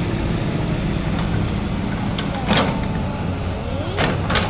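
Komatsu PC200 excavator's diesel engine running steadily, with three short, sharp noises about two and a half seconds in, at four seconds and near the end.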